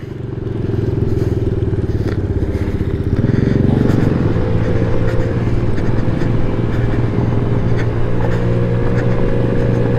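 Honda Ruckus scooter's small single-cylinder engine running while riding on gravel. The engine picks up over the first second, then holds steady.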